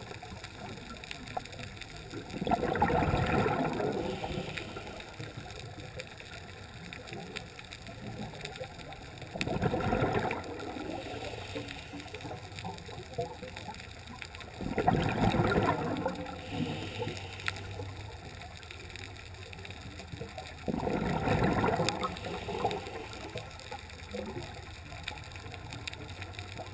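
Scuba diver's breathing heard underwater: four bursts of regulator exhaust bubbles about six seconds apart, one per exhalation, with a steady low hiss between them.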